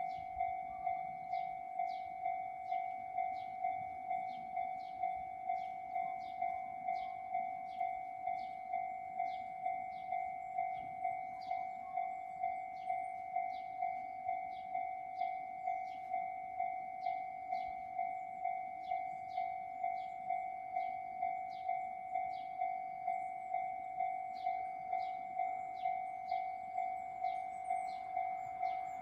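Japanese level-crossing warning bell ringing in a steady, even rhythm of about three dings every two seconds, each a two-tone electronic chime. It is the alarm that a train is approaching the crossing.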